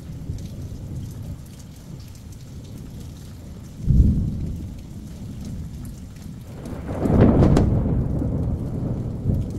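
Thunder in a hurricane's electrical storm: a sudden low clap about four seconds in, then a longer, louder rolling rumble from about seven seconds in, over steady rain.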